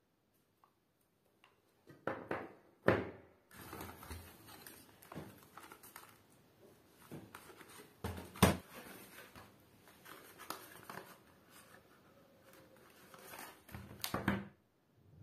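Groceries being unpacked onto a table: a reusable fabric shopping bag rustling, with several sharp knocks as items are set down, the loudest about three seconds in and again about halfway through.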